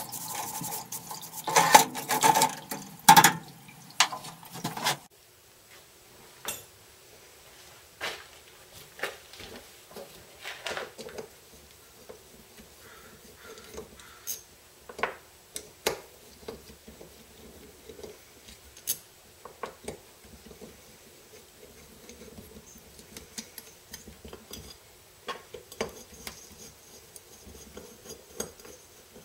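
A Honda CT110 aluminium cylinder head being rinsed and scrubbed in a solvent parts-washer tank: liquid running and metal clattering against the tank. It cuts off suddenly about five seconds in, giving way to scattered light clicks and taps of a small hand tool working at the head's valve area.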